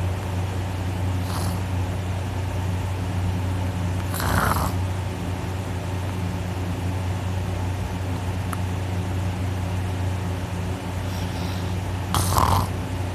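A person snoring with the mouth held open and the nose pinched shut: a steady low drone from the soft palate vibrating, with louder breathy gusts about four seconds in and near the end.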